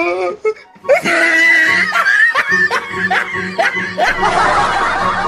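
Laughter: a run of short, repeated laughing bursts starting about a second in, with music underneath.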